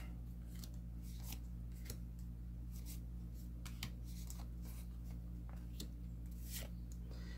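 Magic: The Gathering cards being handled: faint, irregular clicks and slides as cards are moved one by one from the front of a stack to the back. A steady low hum runs underneath.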